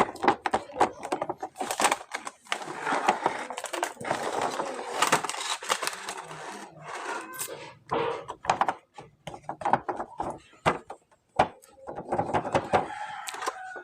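Plastic toy packaging and action figures being handled and unboxed: quick clicks and taps of plastic pieces, with stretches of crinkly rustling.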